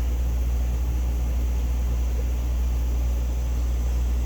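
Steady low hum with a faint hiss above it.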